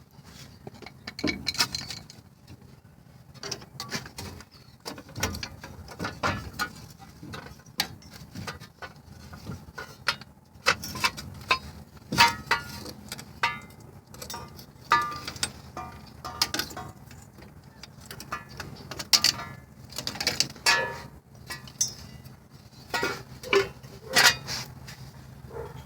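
Hand ratchet with a 15 mm socket clicking in short, irregular bursts, with metal clinks of tools and parts, as the hub bearing's mounting bolts are worked loose.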